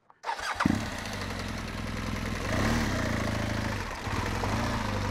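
Adventure motorcycle engine running in first gear as the bike pulls away at low speed. The revs rise a little about halfway through, then settle back.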